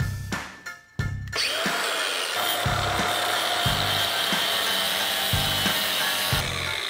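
Background music with a steady beat; about a second in, an angle grinder starts and runs steadily with a constant whine, cutting the metal frame off a motorcycle wheel chock.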